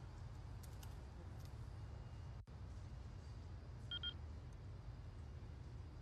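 Faint, steady low outdoor rumble with a short high beep, twice in quick succession, about four seconds in.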